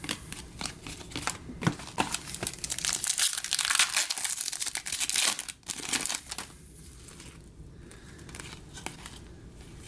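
Plastic trading card pack wrapper being torn open and crinkled: dense crackling for about six seconds, then it dies down to faint handling sounds.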